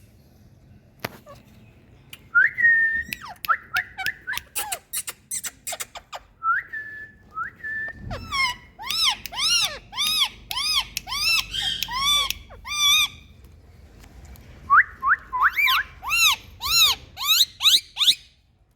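Indian ringneck parrot calling: repeated short, shrill, arched calls at about two a second, in three bouts separated by short pauses.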